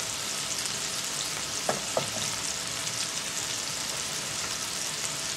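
Burger patties frying in a cast iron skillet: a steady sizzle with fine crackling. Two short sharp sounds come close together about two seconds in.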